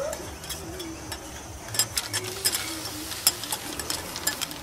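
Two metal spatulas scraping and clicking irregularly on a flat steel teppanyaki griddle as sea snails and vegetables are stir-fried, with a faint sizzle underneath.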